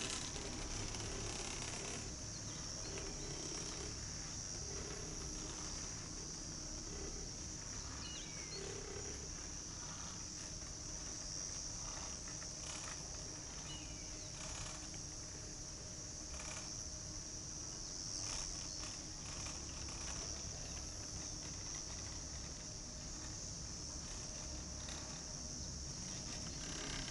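A steady, high-pitched chorus of insects in the summer grass, under a low rumble of wind on the microphone.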